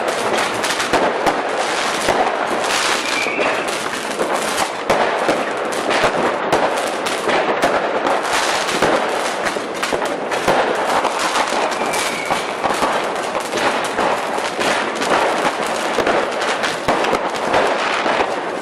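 Fireworks crackling: a dense, continuous rattle of rapid sharp pops with no deep booms, and two faint short whistles, one a few seconds in and one about two-thirds of the way through.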